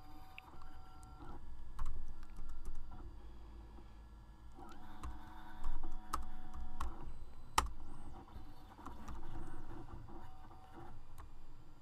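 Typing on a computer keyboard: keystrokes clicking in short irregular bursts with pauses between them, the sharpest single click about two thirds of the way in.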